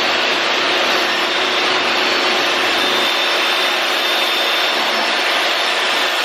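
DeWalt table saw and a shop vac hooked to its dust port running together, a loud steady whine and rush, while rigid foam insulation board is cut.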